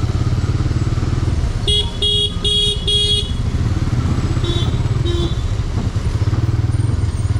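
A vehicle horn beeps four times in quick succession, then twice more, fainter, about a second later. Under it is the steady low rumble of a motorcycle riding in traffic.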